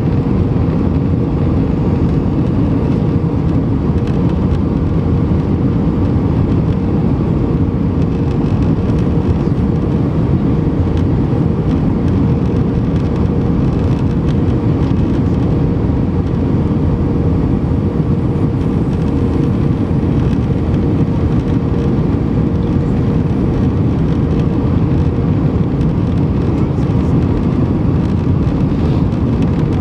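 Steady cabin noise inside an Airbus A320-200 airliner: an even, unbroken rumble of engines and airflow with a faint steady hum.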